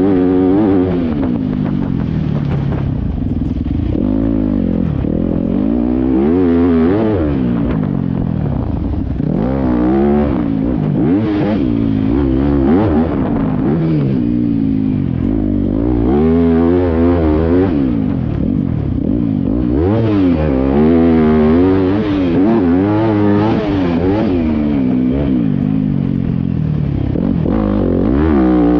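Dirt bike engine revving hard and easing off again and again as the rider works the throttle and shifts through corners and straights, its pitch rising and falling every couple of seconds.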